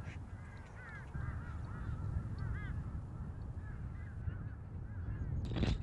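Birds calling with many short, repeated honking calls over a steady low rumble of wind. Just before the end there is a loud, close scraping knock.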